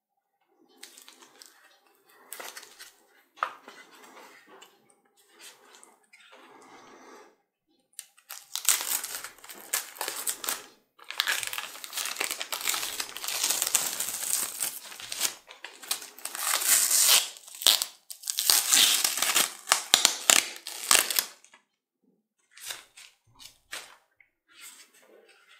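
Clear plastic wrapping crinkling and crackling as it is worked off a graphics card by gloved hands: soft scattered rustles at first, then a long loud stretch of near-continuous crinkling, fading to a few faint rustles near the end.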